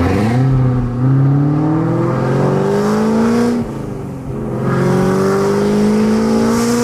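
Car engine accelerating hard, its pitch rising steadily through a gear, then dropping at a shift about four seconds in and rising again through the next gear.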